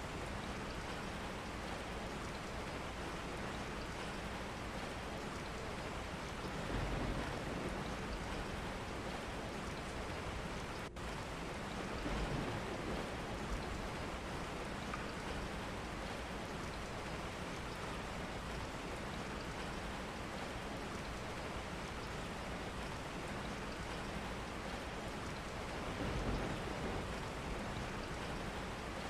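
Steady rain falling, an even hiss of drops with no letup, broken only by a momentary dropout about eleven seconds in.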